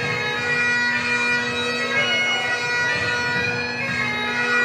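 Great Highland bagpipe playing a dance tune, its melody running over the steady hum of the drones.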